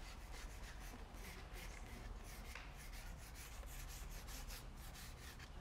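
Paintbrush scrubbing paint across paper in many short, quick strokes, a faint dry brushing and rubbing.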